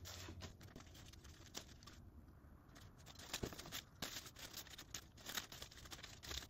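Faint rustling and crinkling of plastic packaging bags being handled as parts are pulled out of them, in scattered short crackles with a brief lull about two seconds in.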